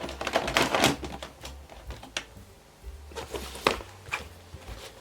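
Craft supplies being handled and pushed into the compartments of a metal utility trolley: a run of clicks, taps and rustling in the first second, then a few separate sharp clicks.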